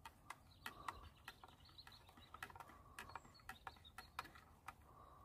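Near silence outdoors, broken by faint, sharp clicks at irregular intervals, about three a second, with faint bird chirps in the distance.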